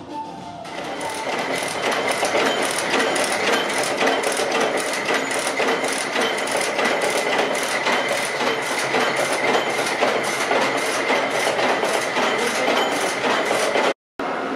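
Factory production machinery running, a loud steady clatter pulsing about three times a second over a constant high whine. It cuts out briefly near the end.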